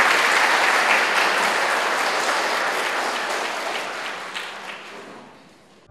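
Audience applauding: many hands clapping at full strength, then dying away over the last two seconds or so.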